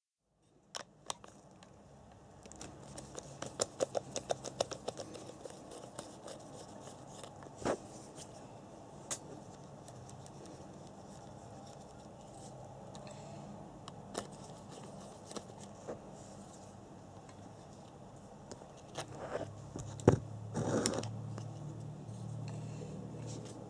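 Hand-handling noise of a plastic RC buggy: scattered clicks, scrapes and rattles as it is held and turned, with a quick run of rattling clicks a few seconds in and a sharp knock or two later.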